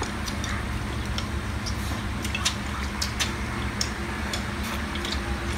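Chopsticks clicking against bowls and the small wet sounds of people eating, scattered irregular ticks over a steady low hum.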